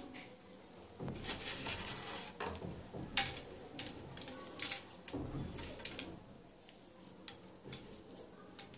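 Fingers scraping a sesame-and-jaggery ladoo mixture together in a nonstick frying pan, with scattered light clicks against the pan; busiest about a second in.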